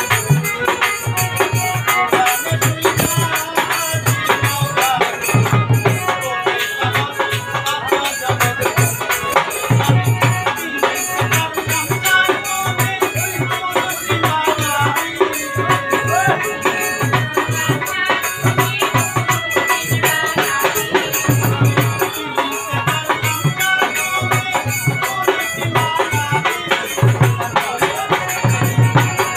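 Live Bengali Baul folk song: a man singing over harmonium, with a dhol drum beating a steady rhythm and shaken rattle-type percussion.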